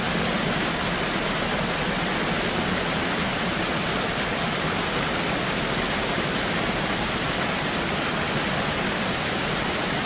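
Waterfall rushing, a steady, even wash of falling water with no breaks.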